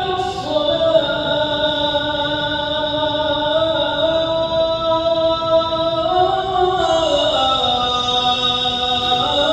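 Muezzin calling the adhan into a microphone: one man's voice holding a single long, ornamented phrase. Its pitch moves in slow steps and falls lower near the end.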